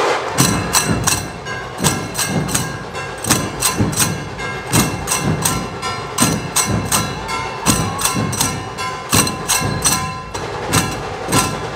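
Live procession percussion in a steady dance rhythm: deep drum thuds mixed with sharp, ringing metal clashes, about three strikes a second.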